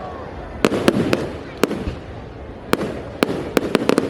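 Fireworks display: about ten sharp cracks and bangs at irregular intervals over a continuous rumbling background.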